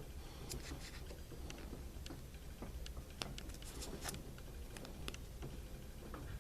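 Light, irregular clicks and taps of a small plastic toy being handled, over a low steady hum; one click about three seconds in is sharper than the rest.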